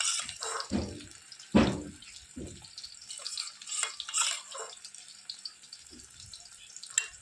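Besan-battered bottle gourd slices sizzling and crackling in hot oil in an aluminium kadhai, with a few thumps, the loudest about one and a half seconds in.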